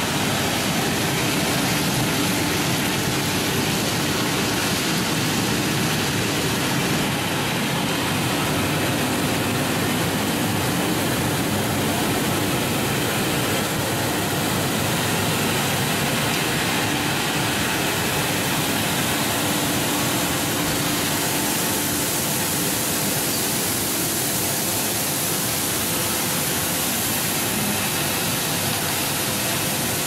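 Tomato bubble washing machine running: air bubbling churns the water in the stainless-steel tank while spray nozzles shower it, a steady rushing water noise with a machine hum underneath.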